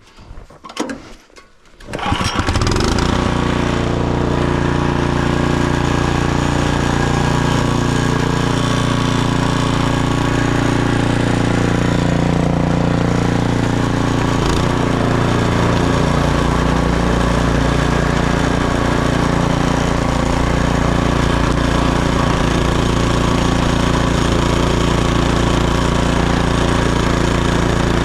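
Snowblower's small gas engine running steadily and throwing snow, warmed up and working well after its drive belt had seemed to slip. A few light knocks come first, then the engine comes in loud about two seconds in and holds steady.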